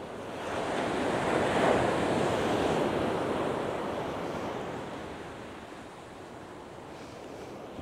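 Sea waves breaking on a shingle beach. One surge swells up about half a second in, peaks a second or so later and slowly fades away over the next few seconds.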